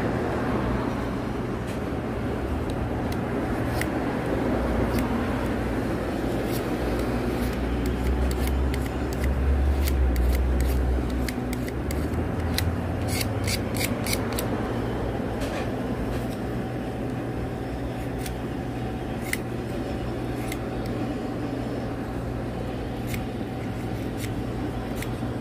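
Utility-knife blade scraping and shaving a slender wooden fishing float: a run of short, sharp ticks, thickest a little past halfway, over a steady low hum.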